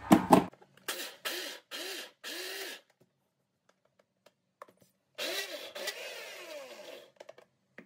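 Preethi mixer-grinder motor run in short pulses, coarsely grinding chana dal: four quick bursts that each whir up and die away, then a longer run of about two seconds that winds down.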